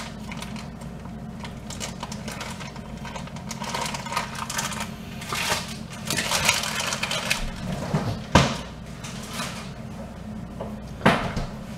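Food packages handled and put into a refrigerator: rustling and small knocks and clicks over a low steady hum, with two sharper thumps near the end.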